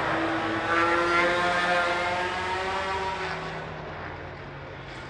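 Racing motorcycle engines at high revs passing by, loudest about a second in and then fading away.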